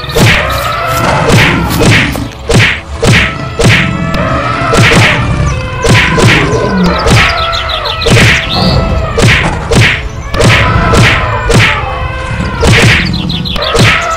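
Cartoon fight sound effects: a steady run of hard whacks and thuds, about two a second, as the animated elephants and lions strike each other.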